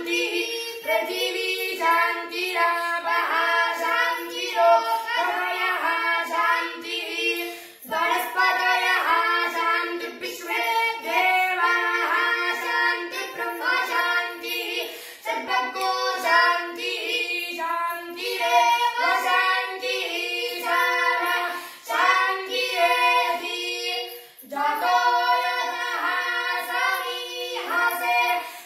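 A boy's high voice chanting Sanskrit mantras in a steady sing-song recitation, with a few short pauses for breath.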